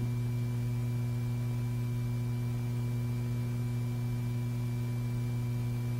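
Steady low electrical hum with a few faint higher tones above it, unchanging throughout; no other sound.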